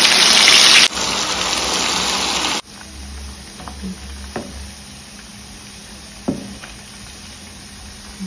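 Plantain pieces deep-frying in hot oil: a loud hissing sizzle that drops sharply about a second in and again at about two and a half seconds, then a quieter steady sizzle with a few light clicks of the spoon against the pan.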